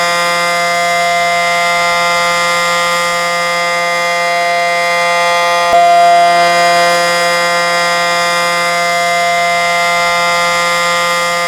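Federal Signal 500AT outdoor warning siren sounding a steady, loud tone at full pitch, with a brief rise in loudness about halfway through.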